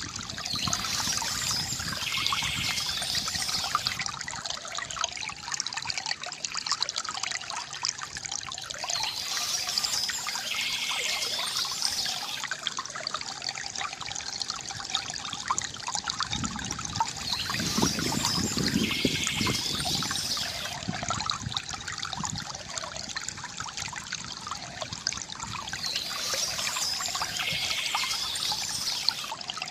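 Water trickling and gurgling from a bamboo fountain, running steadily and swelling about every eight to nine seconds.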